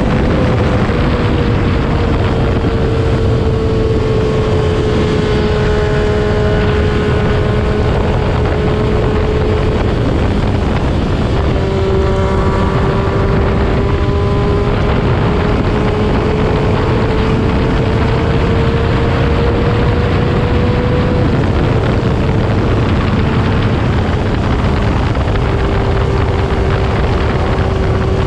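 Heavy wind rush on the microphone at road speed over the steady drone of a Triumph Daytona 675R's inline three-cylinder engine through a Yoshimura Alpha full exhaust. The engine note holds one pitch, sagging slightly twice and creeping back up.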